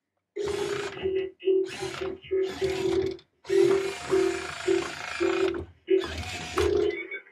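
Remote-control toy truck's small electric drive motor and plastic gears whirring in a string of short stop-start spurts as it is driven and turned.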